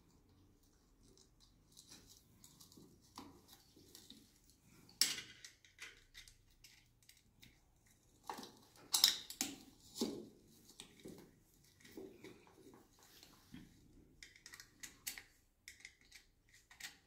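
Small irregular clicks, scrapes and rustles of a screwdriver turning terminal screws on a plastic wall socket and of the wires being handled, with a few sharper clicks about five and nine seconds in.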